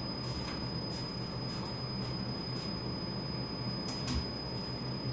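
Commercial drum coffee roaster running empty while it preheats, a steady hum as the drum temperature is brought up and stabilized before the beans go in. A single short knock sounds about four seconds in.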